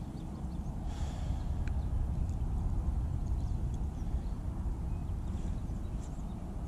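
Wind rumbling on the camera microphone: a steady low buffeting that swells slightly about a second in, with a few faint, scattered high chirps.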